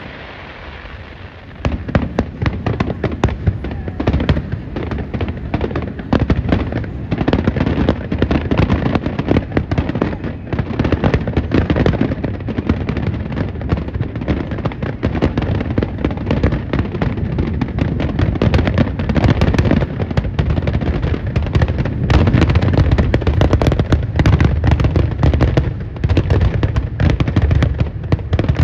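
Fireworks: a continuous barrage of aerial shell bursts, bang after bang with no gaps. It starts about a second and a half in and stays loud.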